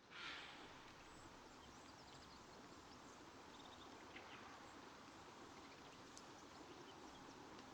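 Near silence: faint outdoor ambience, a low steady hiss with scattered small ticks and chirps, and a brief soft rush of noise at the very start.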